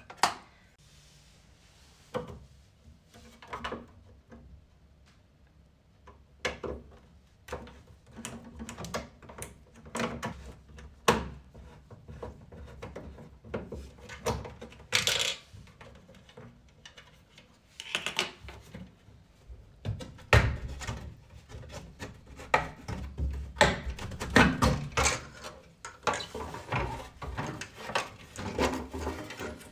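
Irregular clicks, knocks and rattles of hands working on a washing machine's housing and panels to get at the drain pump, busier in the second half.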